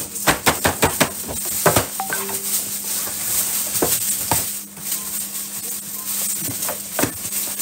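Stiff paper shopping bag rustling and a cardboard gift box knocking and scraping as the box is pulled out and set down and its lid lifted off: a quick run of taps and clicks in the first two seconds, then scattered rustles and a few knocks, over a steady low hum.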